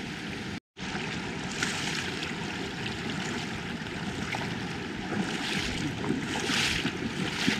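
Shallow creek running high after rain, the water rushing and splashing over rocks in a steady wash. The sound breaks off for a moment less than a second in, then carries on.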